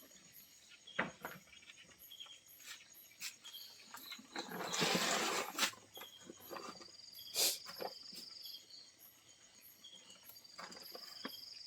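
Insects calling at night: a high, steady cricket-like trill starts and stops, over faint chirps and a few scattered knocks. About four and a half seconds in comes a louder rushing burst that lasts about a second.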